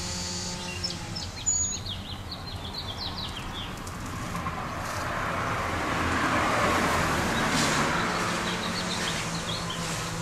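Small birds chirping in quick runs of short notes, at the start and again near the end, while a passing car swells up and fades away in the middle over a steady low hum.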